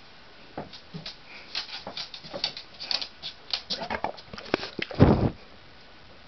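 Roborovski dwarf hamsters scrabbling and rustling in their bedding: a run of irregular light scratches and clicks, with a louder rustle about five seconds in.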